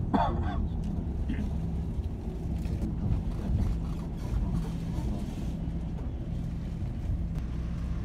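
Vehicle engine running at low speed, a steady low hum heard from inside the cabin. A brief falling squeal sounds at the very start.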